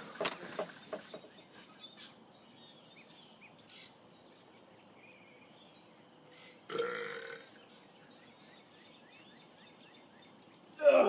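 A person's harsh, noisy vocal burst in the first second, then a short burp about seven seconds in, with only faint background sound between.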